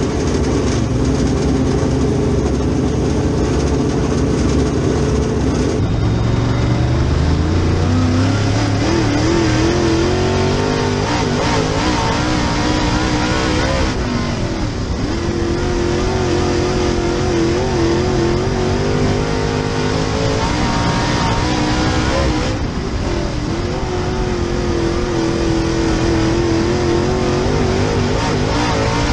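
Super Late Model race car's V8 engine heard from inside the car. The revs climb about six seconds in, then it runs hard at high revs, easing off briefly about 22 seconds in before pulling again.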